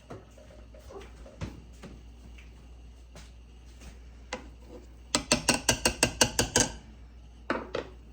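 A kitchen utensil knocking and clacking against a mixing bowl while the sweet potato mixture is stirred. It starts as scattered knocks, then comes a fast run of about a dozen clacks at some eight a second, and two or three more near the end.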